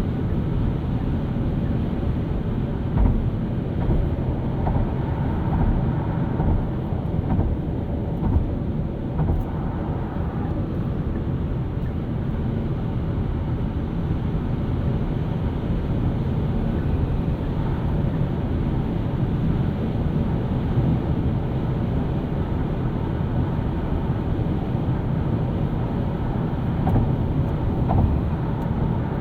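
Steady low rumble of road and tyre noise from a Hyundai Kona Electric driving along, with no engine note, and a few short knocks from bumps in the road.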